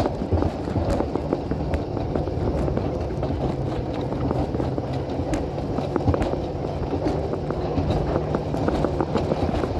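Alpine coaster sled running along its tubular steel rail track: a steady rumble of the wheels on the rails with many small clicks and rattles.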